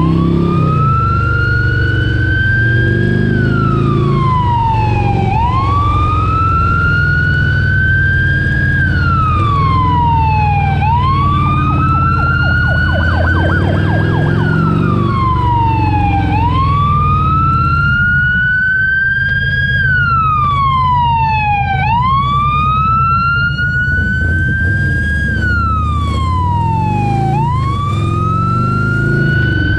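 Emergency vehicle siren in a slow wail, climbing for about three seconds and falling for about two, over and over, over the steady low running of a motorcycle engine.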